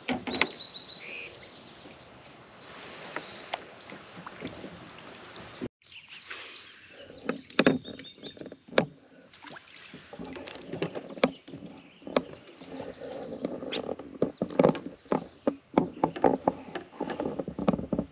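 Paddling a plastic kayak: paddle blades dipping and splashing, with repeated sharp knocks and clatters of the paddle and gear against the hull. A bird chirps in the first few seconds.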